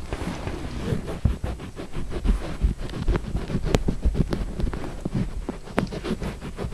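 Rustling of a blanket and close handling noise as a cat paws and grabs at a hand on it, with scattered soft knocks and two sharp clicks about two seconds apart.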